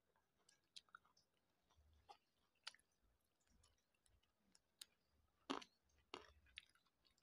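Near silence with faint eating sounds: scattered small clicks and mouth noises of chewing as rice and boiled fish are eaten by hand from ceramic plates, with two slightly louder clicks near the end.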